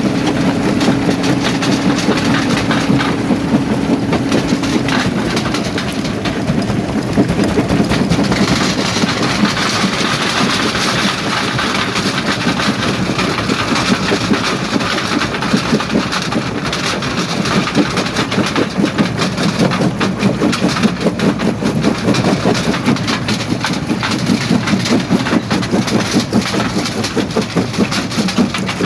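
Primary jaw crusher running and breaking rock: a steady engine drone that drops in pitch about five seconds in, under dense rattling and cracking of stone.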